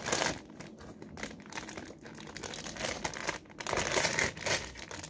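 Crinkling and rustling of a surprise-pack packet being handled and opened by hand, with louder crinkles right at the start and about four seconds in.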